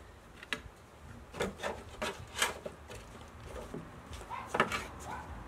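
Firewood sticks being handled, knocking and rubbing against each other, with several separate sharp wooden knocks.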